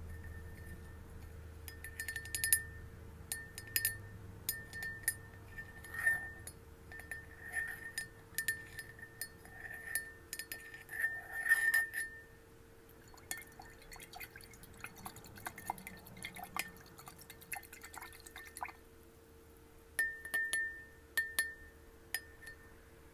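Glass being tapped in quick irregular runs, each tap ringing with a clear high note. In the middle there is a stretch of softer, denser clicks with little ring, then a few more ringing taps near the end.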